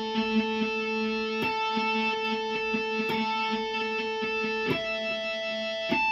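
Guitar tapped harmonics on the G string: chiming, sustained notes, each newly struck with a tap, changing pitch about every one and a half seconds.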